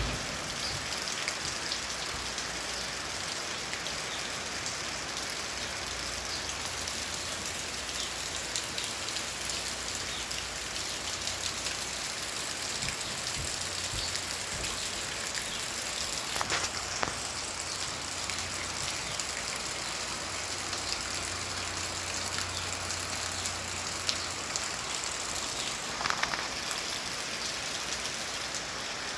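Steady rain falling, a dense patter of fine drop ticks over an even hiss, with a few louder splashes about halfway through and again near the end. A faint low hum runs underneath for stretches.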